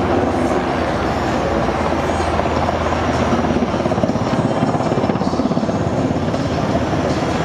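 Army helicopter hovering low over water, its rotor chopping fast and steady, with rushing downwash noise.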